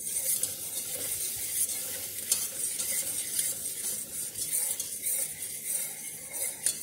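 Butter and cornstarch sizzling in a metal saucepan over medium-high heat while being stirred: a steady frying hiss, with the utensil scraping and clicking against the pot.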